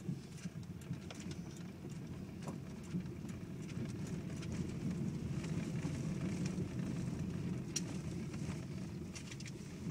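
Car driving on a dirt road, heard from inside the cabin: a steady low rumble of tyres on the unpaved surface with scattered small ticks and crunches of grit and pebbles.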